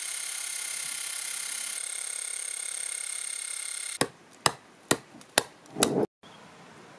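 Angle grinder with a wire wheel running against a rusty axe head: a steady high whine over a hiss, which cuts off about four seconds in. Then an axe strikes wood about five times, sharp knocks a little under half a second apart.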